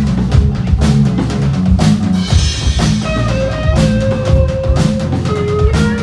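Rock band playing live: a drum kit keeping a steady beat under bass and electric guitars, with a held melody line coming in over the top about three seconds in.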